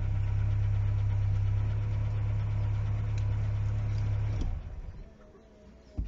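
Audi 80 engine idling steadily with a low hum, then switched off with the ignition key about four and a half seconds in, stopping abruptly. A sharp click follows near the end as the key is turned back.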